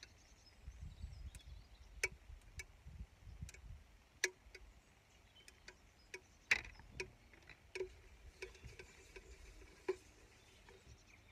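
Scattered sharp clicks and light knocks, about a dozen, from kitchen things being handled at an electric hot plate: an oil bottle and a metal spatula on the plate. The loudest knocks come about four seconds in and again after six seconds.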